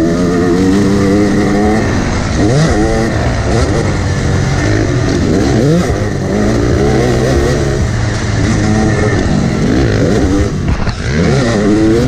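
Yamaha YZ250X two-stroke dirt bike engine being ridden hard, its pitch repeatedly climbing and dropping back as the throttle is worked, with wind rumbling on the microphone.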